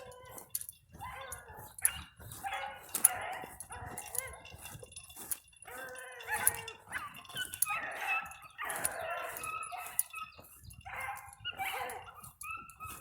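Dogs barking in a quick run of short calls, one after another.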